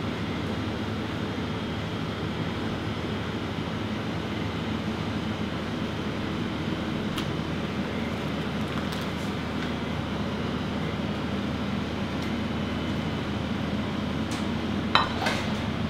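Steady hum of kitchen ventilation, with a few light clinks of plates and utensils and a sharper knock near the end.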